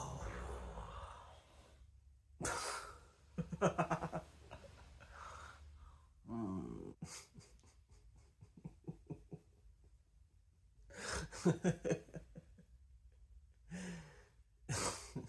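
Close breathing heard as a series of separate breaths, gasps and sighs, several with a fast rattle like snoring.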